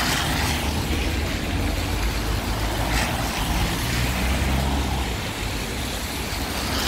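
Road traffic passing in a city street: a steady low rumble of vehicles with an even hiss over it.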